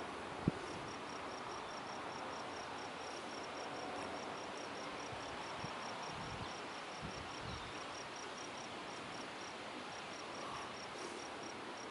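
An insect chirping steadily in a high, even pulse about five times a second, over a steady outdoor hiss. A single sharp click sounds about half a second in.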